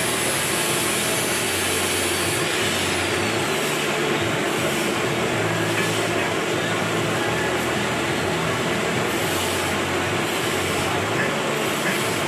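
Milling machine running with a steady machine-shop drone and a low hum.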